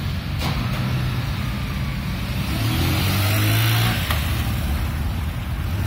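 Motorcycle taxi engine running in city traffic over road and wind noise. Its note rises and grows louder around three seconds in, then drops back.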